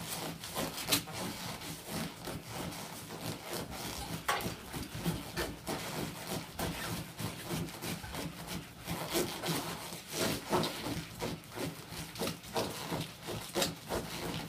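Irregular rubbing and rasping sounds from a patient having a seizure in a dental chair.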